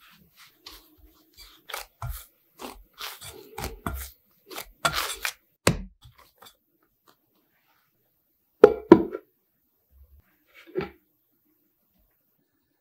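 Hands kneading soft bread dough by hand in a glass bowl: a quick run of short sticky pressing and pulling sounds for about six seconds. Then, after a pause, two loud knocks close together and a softer one shortly after.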